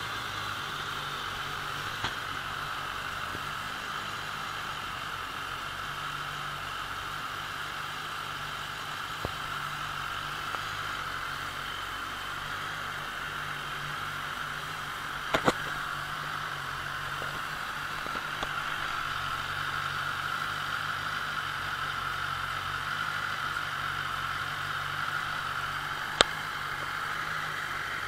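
2019 BMW S1000RR's inline-four engine idling steadily. There are two sharp clicks, one about halfway through and one near the end.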